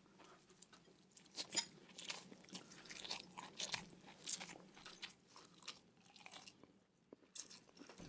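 A person chewing food close to a microphone, with irregular crisp crunches and mouth sounds.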